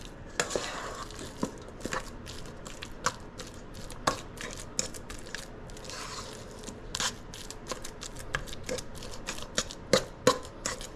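A fork mashing ripe bananas in a bowl, with quick irregular clicks and taps of the fork against the bowl and soft crushing sounds.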